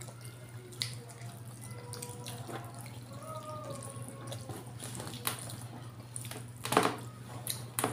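Wet chewing and lip-smacking of people eating rice with their hands, a scatter of short clicks and smacks with the loudest about seven seconds in, over a steady low hum.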